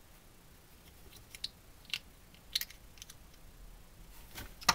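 Plastic resin miniature boar halves handled and pressed together between fingers: several sharp little clicks and ticks at uneven intervals, the loudest near the end.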